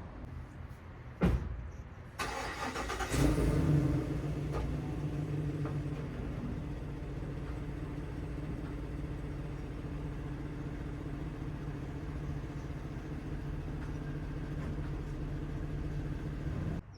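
A sharp knock, then a car engine is cranked, catches about three seconds in and settles into a steady idle.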